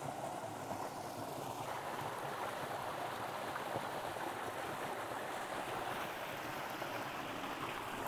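Mountain stream running: a steady, even rush of flowing water.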